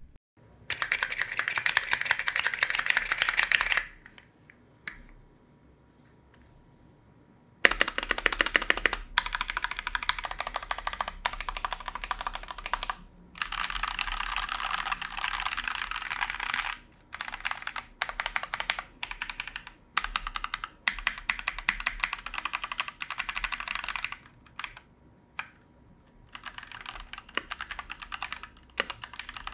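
Noir OLV75 mechanical keyboard, with an aluminium plate and foam between plate and PCB, being typed on fast in runs of rapid keystrokes. There is a pause of a few seconds about four seconds in, then the typing resumes in bursts with short breaks.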